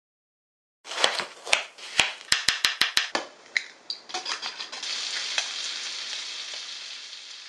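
A run of sharp clicks against a glass bowl, briefly fast and even, like a utensil beating egg, followed by bacon strips sizzling in a frying pan, the sizzle fading out near the end.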